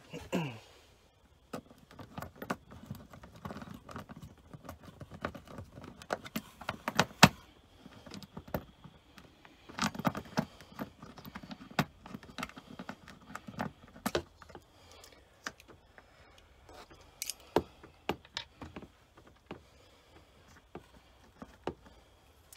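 Irregular small clicks, taps and light rattles of hands working on a caravan's 12 V spotlight fitting and its screws, with bursts of handling rustle between the sharper clicks.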